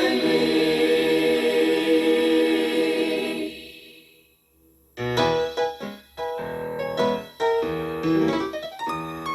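Gospel choir holding a final chord that fades out over the first four seconds, then after a brief pause a piano starts playing chords.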